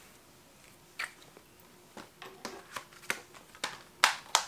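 A Blu-ray case and its contents being handled: a string of about eight short clicks and rustles at uneven intervals, the two loudest near the end.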